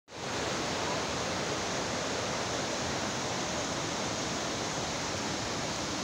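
Rushing mountain stream tumbling over rocks: a steady, even rush of water.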